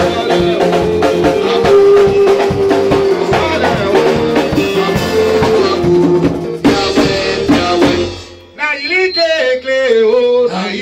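Live church praise music: a drum kit keeping a steady beat under sung, held notes. About eight seconds in the drums stop and a man's voice sings on alone through the microphone.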